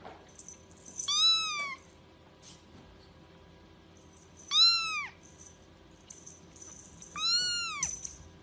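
A very young grey kitten mewing three times, thin high-pitched mews about three seconds apart, each rising and then falling in pitch.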